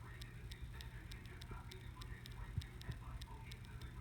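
Light, even ticking, several ticks a second, over a low steady hum.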